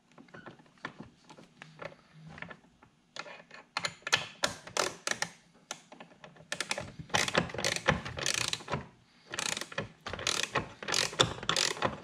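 Hand socket ratchet clicking as a 19 mm nut is run down onto a seat belt anchor bolt. Faint ticks at first, then from about three seconds in, runs of quick clicks in repeated strokes with short pauses between them.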